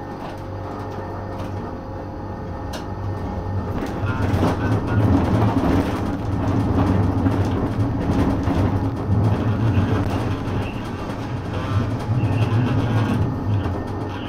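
Brussels tram pulling away from a stop and running along the track, heard from inside the driver's cab. A steady low hum is joined about four seconds in by a louder rumble and rattle of the wheels on the rails as it gathers speed.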